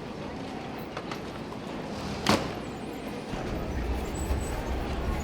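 Steady background noise with one sharp knock about two seconds in, and a low rumble that sets in past the middle.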